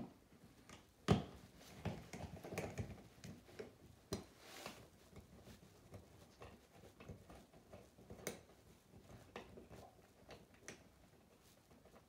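Faint scattered clicks and scrapes of a screwdriver turning the screw out of a plastic wall outlet cover plate, with a sharper click about a second in.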